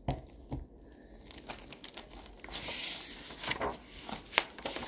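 A picture book being handled: rustling of paper and cover, with scattered taps and clicks and a longer rustle in the middle.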